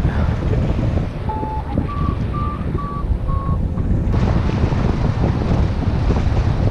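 Wind rushing over the microphone in paraglider flight, with a short run of five beeps between about one and four seconds in, each at a slightly different pitch, typical of a flight variometer signalling rising air.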